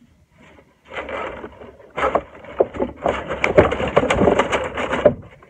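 Rattling, clicking and rustling as a window blind is handled and adjusted, with many quick clacks about two seconds in that go on until near the end.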